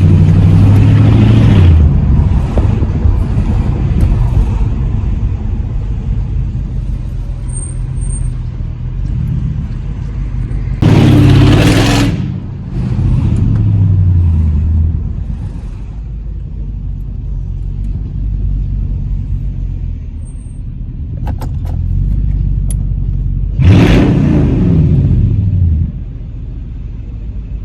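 Mercedes-Benz E55 AMG's supercharged 5.4-litre V8 running under way. It gives two loud bursts of hard acceleration, about eleven seconds in and again near twenty-four seconds, and after each the engine pitch falls away. Between them it pulls more steadily.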